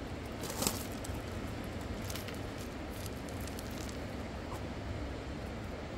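Steady rushing of a fast-flowing river, with a few sharp clicks over it, the loudest just under a second in.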